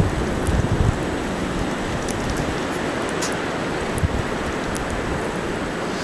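Snowstorm wind: a steady hiss of blowing weather with uneven low rumbling gusts buffeting the microphone, and scattered light ticks.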